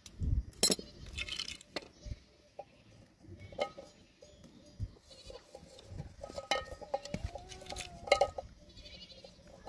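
Sharp metallic clicks and knocks from pliers and a tin can being handled on hard ground, a few scattered taps with the loudest about a second in and near the end. An animal call rises and falls in the background near the end.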